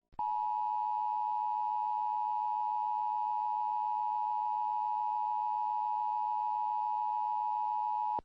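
Emergency Alert System attention signal: a steady two-tone alarm held for about eight seconds, then cut off sharply. It is the alert tone that announces an emergency bulletin is about to be read.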